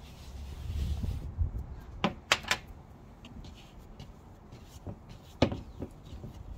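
A hand rubs flour across a wooden chopping board, then a small glass bowl and a wooden bowl are handled. There are three sharp knocks about two seconds in and another about five and a half seconds in.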